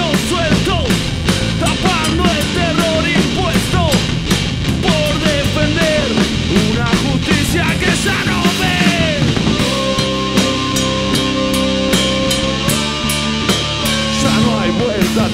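Rock band playing live: regular drum kit hits under a dense, loud wall of instruments, with a melody of sliding, bending notes through the first part and steady held chords from about two-thirds of the way in.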